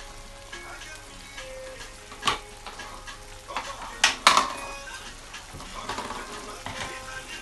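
Potato leaf soup sizzling in palm oil in a nonstick frying pan while it is stirred with a plastic spatula. There are sharp clacks of the spatula against the pan, once about two seconds in and twice in quick succession about four seconds in.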